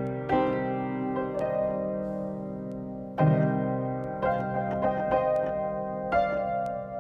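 Background music: slow piano chords, a new chord struck every second or two and left to ring.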